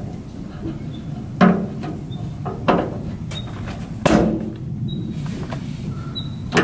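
Three sharp metallic knocks about a second and a half apart, the third loudest with a short ring, as a gas strut is pushed and snapped onto its ball-stud mounts on a bus's steel bay door.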